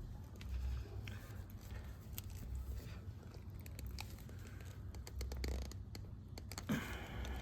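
Scattered small clicks and rustles of wires being handled and zip-tied together, with a short cluster of clicks about five seconds in.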